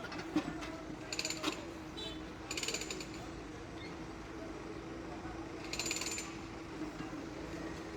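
Case 770 EX backhoe loader's diesel engine running steadily, with three short bursts of metallic rattling from the working machine about one, two and a half and six seconds in.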